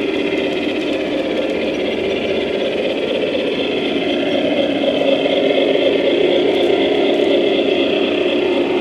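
Battery-powered G-scale model train fitted with a QSI sound system, running on its garden layout with a steady engine-like hum that grows slightly louder about halfway through.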